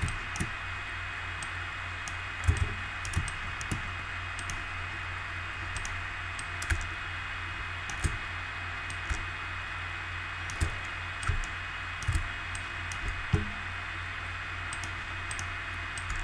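Computer keyboard keys and mouse buttons clicking at irregular intervals, over a steady background hiss and low hum.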